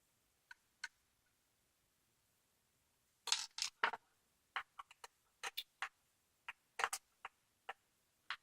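Irregular sharp metal clicks from a screwdriver working tight, long-unopened screws out of an old Corbin mortise lock. Two faint clicks come first, then a quicker run of about fifteen starts about three seconds in.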